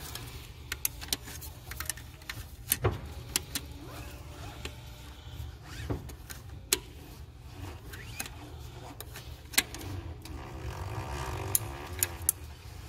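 Scattered sharp clicks and taps of pliers and hand tools against metal and plastic parts in a car's engine bay, over a steady low hum.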